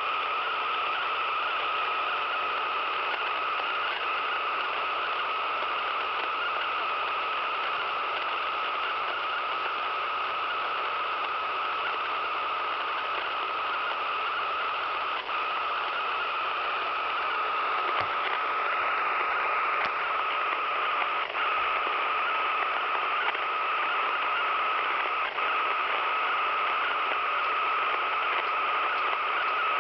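A radio receiver tuned to around 102 FM, its speaker giving out a steady static-like hiss with a steady high tone running through it and a few faint clicks: the strange, unidentified signal the radio is picking up.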